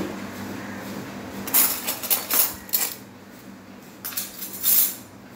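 Stainless-steel spoons clinking and rattling against one another in two short clusters, about a second and a half in and again about four seconds in.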